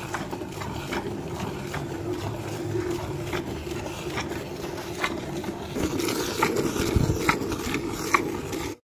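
A cow being milked by hand: repeated squirts of milk hitting milk in a large bucket in an uneven rhythm, about one or two a second.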